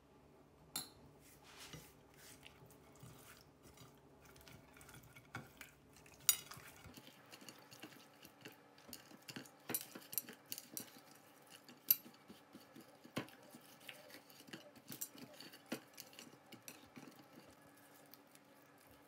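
Metal spoon tapping and scraping on a ceramic plate, then hands rubbing spice into whole raw horse mackerel and shifting them about the plate, giving soft wet handling noise and irregular clinks and taps. The sharpest clinks come about six and twelve seconds in.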